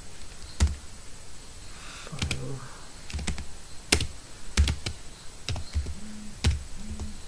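Computer keyboard being typed on: a dozen or so sharp keystrokes at an uneven pace, some in quick runs.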